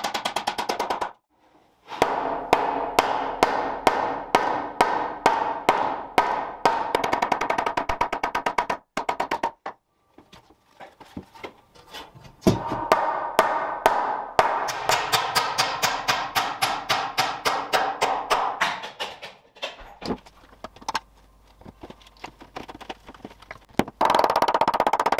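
Impact driver driving screws into timber joists, in several runs of rapid hammering over the motor's whine, broken by abrupt silent cuts.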